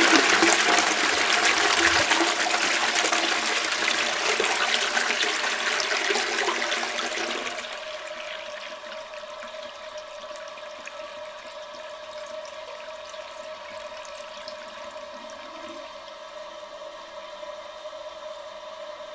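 Toilet flushing: a loud rush of water that eases off about seven or eight seconds in, then gives way to a quieter steady flow with a steady whine as the cistern refills.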